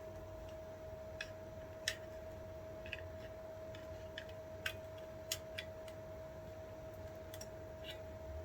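Scattered small clicks and taps at irregular intervals, from tools and small parts handled while a door lock is taken apart, over a steady faint whine.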